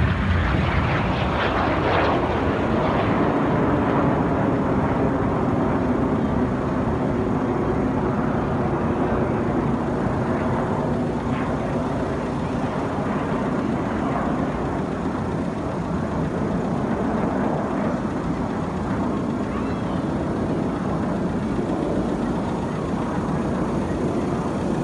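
BAE Hawk T1 jets flying past, the steady rush of their turbofan engines loudest in the first few seconds and easing slightly toward the end.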